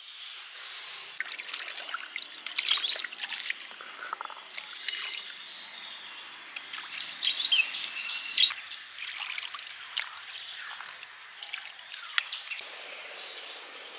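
Water poured from a clay pot onto a flat stone grinding slab and splashed across it by hand to rinse the stone: a run of irregular splashes and trickles that ends about a second and a half before the end.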